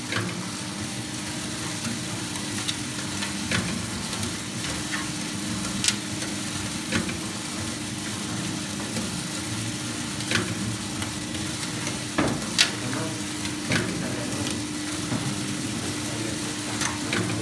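Coffee bean roaster running: a rotating stirring arm sweeps dark-roasted beans around a stainless-steel pan, giving a steady rustling hiss over the low hum of the electric drive motor. Occasional sharp clicks come every second or two.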